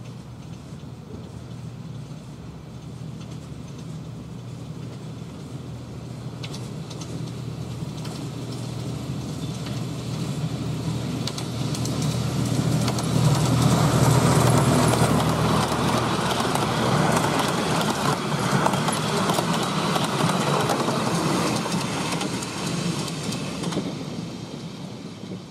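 Miniature railway diesel-hydraulic locomotive with a train of coaches approaching, passing and running away. The engine drones steadily under a light rattle and clicking from the wheels and coaches, growing louder to a peak about halfway through and then fading.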